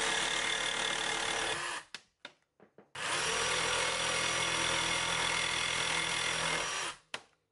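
Bosch jigsaw with an Eclipse T-shank metal blade sawing through 6 mm steel threaded rod, a steady motor hum with the rasp of the blade. It runs for about two seconds, stops with a few clicks, starts again a second later and runs until near the end.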